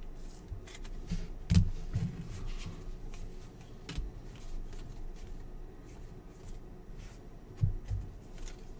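Basketball trading cards being flipped and slid through the hands one after another, a run of light clicks and paper slaps with a few louder thumps, the loudest about a second and a half in and another near the end.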